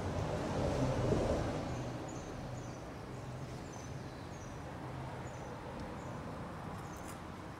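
A low traffic rumble from the street swells as a vehicle passes about a second in, then settles. Over it a small bird gives a run of short, high chirps, about two a second.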